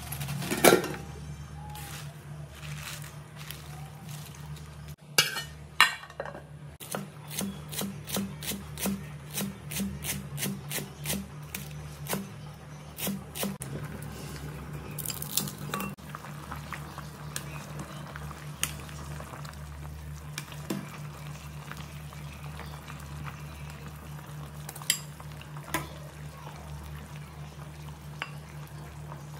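Clinks and knocks of a steel ladle and utensils against a steel pot and a ceramic bowl, with a run of sharp clicks in the first half and a few scattered later, over a steady low hum.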